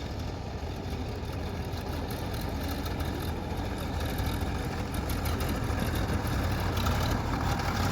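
Heavy diesel engine running steadily, growing slightly louder toward the end.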